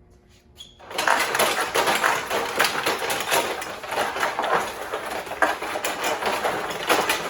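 A loaded tool storage rack and the broom, mop and shovel handles in it rattling and knocking rapidly and without a break, starting about a second in, as the rack is stressed.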